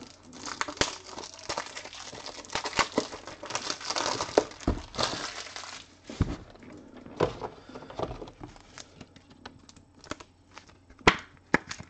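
Packaging crinkling and rustling as it is handled and crumpled, densest for the first six seconds, then thinning to scattered light clicks and taps, with one sharper tap near the end.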